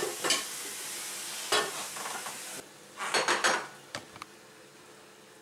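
Minced pork and zucchini sizzling in a pan while a spatula scrapes and stirs it in several strokes, with the heat just switched off. A little past halfway the sizzle stops, followed by a brief clatter of utensil against the pan and a couple of single clicks.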